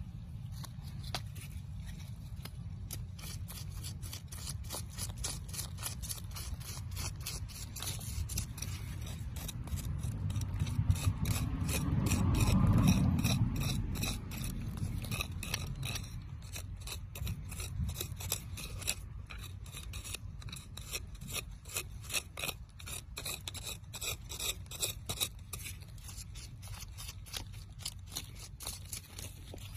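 A hand tool scraping coarse, gritty soil in quick, repeated scratches as it digs around a buried stone. A low rumble swells about eleven seconds in and fades by fourteen.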